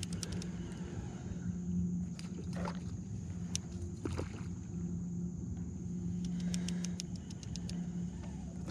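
Spinning fishing reel being worked against a hooked drum: a steady low hum from the reel with short breaks, and two bursts of rapid ticking, near the start and again after about six seconds.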